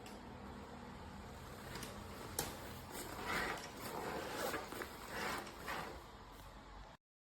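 Handling noises of a fabric travel backpack: a sharp click, then several rasping swells of rubbing or scraping. The sound cuts off suddenly near the end.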